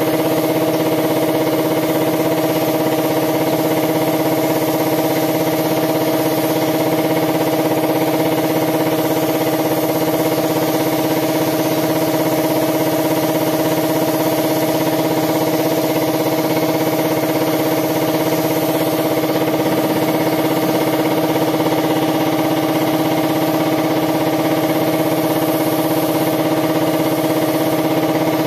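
Air compressor running with a loud, steady, unchanging hum, supplying air to a paint spray gun.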